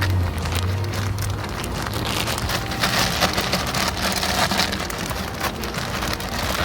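Water splashing and trickling in a bucket as a block of coconut coir is soaked and worked by hand, louder about three to four and a half seconds in.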